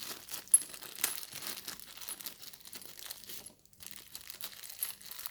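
Plastic packaging crinkling and rustling as it is handled, with a sharp click about half a second in.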